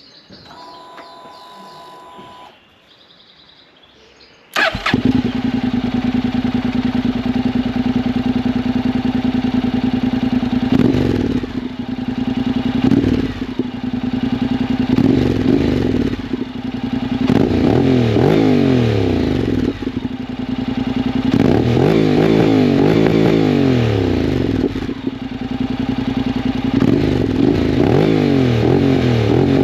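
Honda NC750X parallel-twin engine through a MIVV Suono aftermarket exhaust, starting abruptly about four and a half seconds in and settling to idle. It is then revved in repeated blips, the later ones longer and higher.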